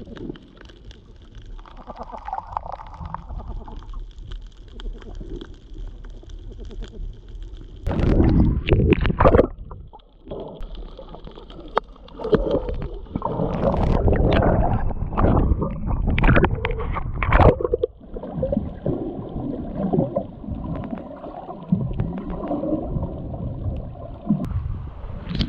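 Muffled sea water gurgling and sloshing around a camera at the surface while snorkelling, with irregular loud surges and knocks from about eight seconds in.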